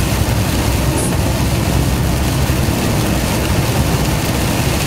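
Lorry's diesel engine running steadily while under way, heard from inside the cab, over an even hiss of tyres on a rain-soaked road.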